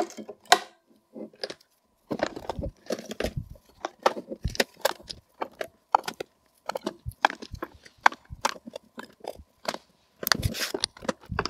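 18650 lithium-ion cells being pushed one after another into the spring-contact slots of a plastic power bank case and picked from a plastic tray: an irregular run of sharp clicks, taps and knocks, several a second.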